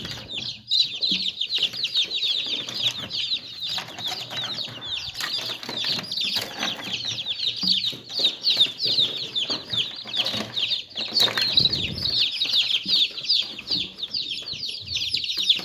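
Many newly hatched chicks peeping continuously: a dense stream of high, rapid, overlapping cheeps that each slide downward. Occasional light knocks and rustles sound beneath them.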